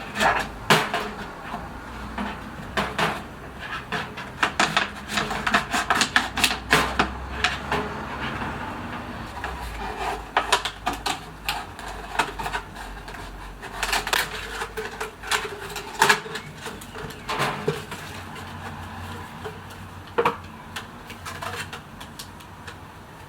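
Close-up handling sounds of hands working with objects: irregular clicks, taps and light scrapes in quick flurries, busiest early on and again about midway, with a faint rustle between them.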